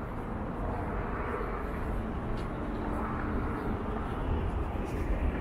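City street ambience: a steady rumble of road traffic from cars on the street, with a faint engine hum in the middle.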